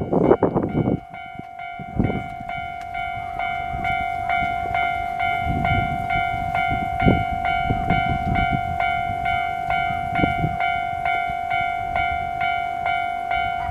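Japanese railway level crossing's electronic warning bell ringing steadily, a little under two dings a second, as a train is due. A loud rush of noise dies away about a second in, and gusts of low rumble come and go under the bell.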